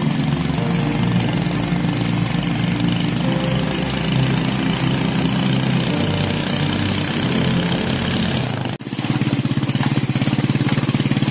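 Motorcycle engine running steadily while riding, heard from on the bike. About nine seconds in there is a sudden break, and then the engine carries on with a more pronounced pulsing beat.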